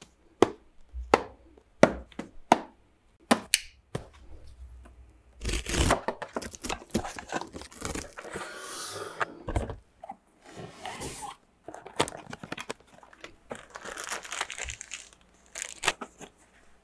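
Unboxing sounds from a cardboard retail box: several sharp taps and knocks of the box being handled on a table, then cardboard sliding and rustling as the inner box comes out of its sleeve and is opened, with plastic wrapping crinkling.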